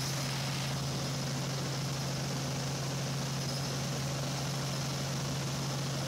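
Helicopter running with a steady drone: a constant low hum under an even hiss, holding one pitch throughout.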